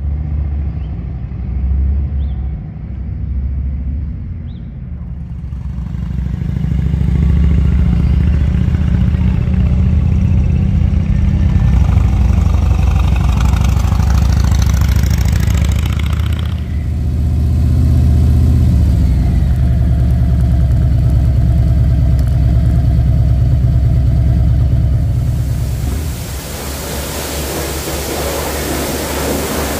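Harley-Davidson touring motorcycle's V-twin engine running, its pitch rising and falling. About 26 seconds in it gives way to the steady hiss of a pressure washer spraying.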